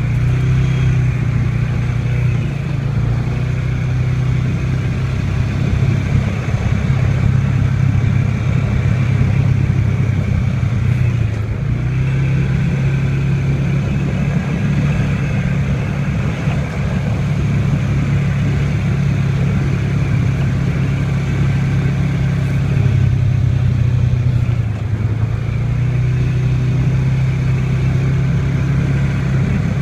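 ATV engine running steadily as the machine rides down a dirt trail. Its note dips briefly twice, about a third of the way in and again toward the end.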